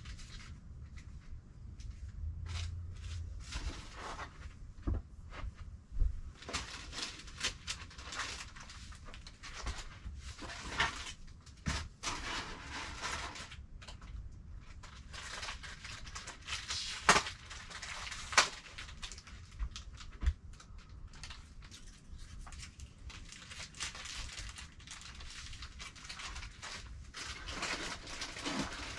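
Things being handled in cardboard boxes: rustling of cardboard and plastic with scattered knocks and clicks, the loudest a couple of sharp knocks just past the middle.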